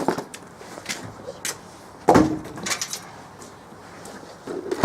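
A few short wooden knocks and clunks, with one louder, briefly ringing knock about two seconds in, as firewood logs are handled.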